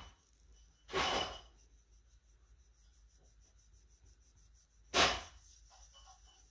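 Two short, breathy puffs of air, about a second in and about five seconds in: a person breathing out close to the microphone.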